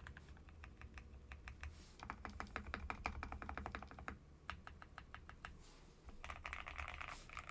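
Fast typing on a KBDfans D60 Lite mechanical keyboard with lubed Keyfirst Cream switches and POM keycaps, a quick run of clacky key presses that thins to a few separate strokes about four seconds in. Near the end, a scratchy rustle takes over.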